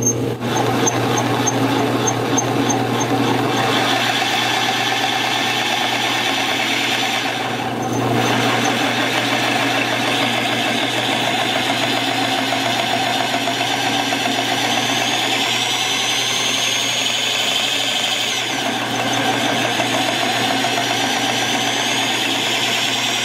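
Harbor Freight corded drill running steadily, spinning the wheel of a home-made piston-ring grinder with no ring on it. The sound shifts briefly about eight seconds in, and a high whine rises and then falls in the second half.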